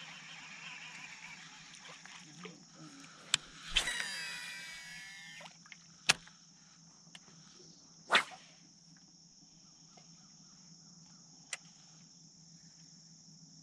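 Shimano Antares DC baitcasting reel making a cast: the digital-control brake gives a whine about four seconds in that falls in pitch over a second and a half, with a few sharp clicks before and after. A steady high insect buzz runs underneath.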